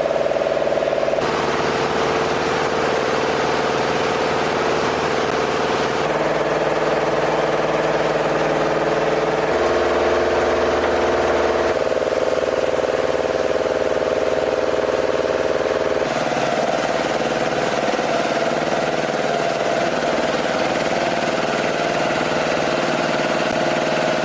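Steady engine drone with several pitch-steady tones, changing abruptly to a slightly different drone several times.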